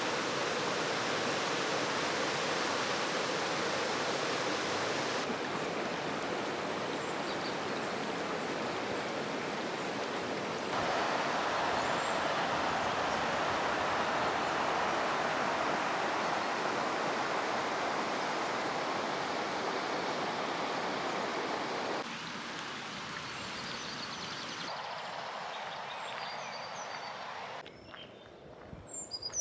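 A river's steady burbling and rushing over stones, its level stepping up and down abruptly several times. A few faint bird chirps come through, clearest near the end.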